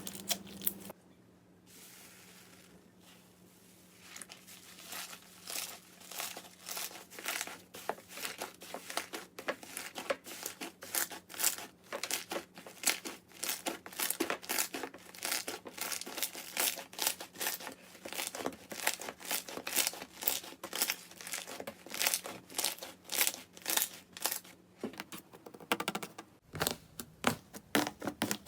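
Slime being worked by hand, giving a dense run of small crackles and pops. It is quieter for the first few seconds, then the crackling goes on steadily, with a short break near the end.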